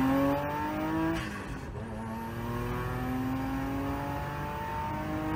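Venturi 400 Trophy's twin-turbo V6 accelerating hard, heard from inside the cabin: the engine note climbs, drops at an upshift about a second in, then climbs again through the next gear.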